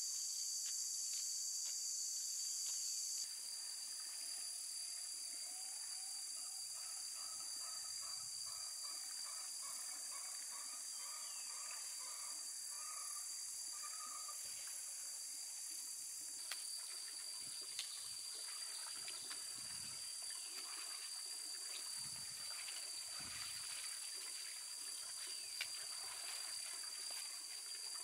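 Steady, shrill insect chorus with one unbroken high-pitched drone. A run of short repeated chirping notes comes through in the first half, along with a few faint ticks.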